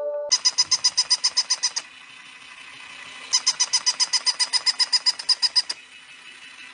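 Battery-operated plush toy puppy running, giving a rapid, even train of chirping clicks at about ten a second. It comes in two runs of a second and a half and two and a half seconds, with a pause between.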